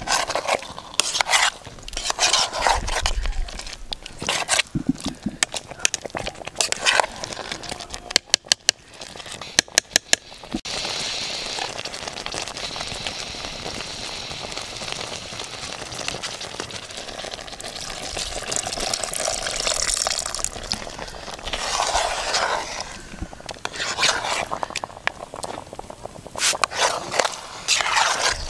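A metal spoon stirring and scraping through sweet potatoes in groundnut sauce in a metal saucepan, with a few sharp clicks around eight to ten seconds in. In the middle stretch the hot sauce gives a steady sizzling hiss. The stirring and scraping comes back near the end.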